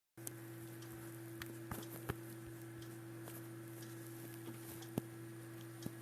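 Steady low electrical hum and hiss, with a few faint, scattered clicks. The sound cuts out completely for a moment at the very start.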